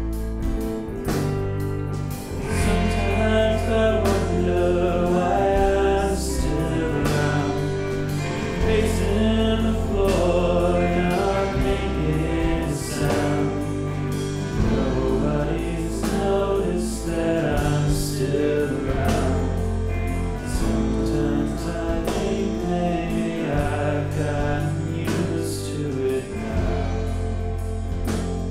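Music: a song with sung vocals over a bass line and a steady beat.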